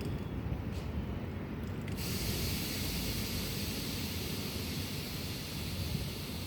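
Train running with a steady low rumble; about two seconds in, a hiss sets in suddenly and carries on over it.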